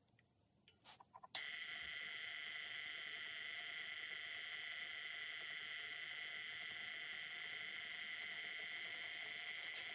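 Electric Eel Wheel Nano 2.0 electric spinning wheel starting after a few clicks about a second in, then running with a steady high-pitched whine. The noise comes from its front bearing not being pushed on firmly enough, as the spinner later finds.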